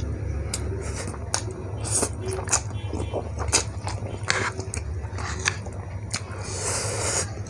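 Close-miked eating of soupy instant noodles: irregular wet mouth clicks and smacks from chewing, with a short airy hiss near the end, over a steady low hum.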